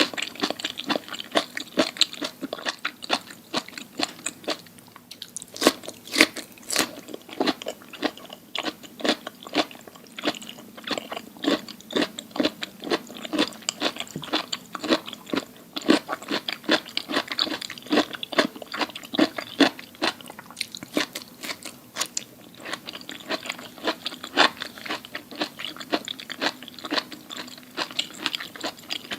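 Close-miked ASMR eating: a person biting and chewing crunchy food, with dense, irregular crisp crunches and a brief lull about five seconds in.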